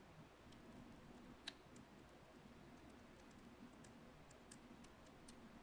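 Faint, scattered small clicks of a precision screwdriver turning out the P2 pentalobe screws at the bottom of an iPhone 11, with one sharper click about one and a half seconds in.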